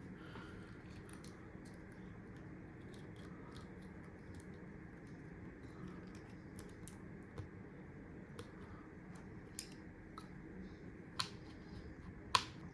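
Small clicks and taps from handling phone parts and small tools during an iPhone repair. They are scattered and sparse, over faint steady room noise, with a few sharper clicks near the end.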